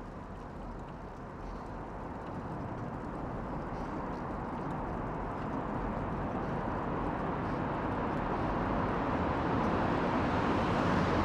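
Steady rushing outdoor ambience with no clear tones or beat, swelling gradually louder.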